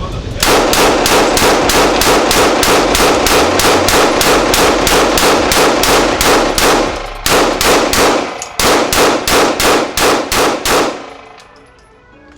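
A long string of rapid, evenly spaced gunshots, about four a second, broken by two short pauses into three strings of some forty shots in all. The firing stops shortly before the end.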